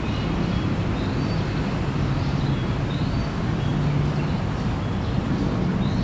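Steady low rumble of city traffic, with birds giving short high chirps several times over it.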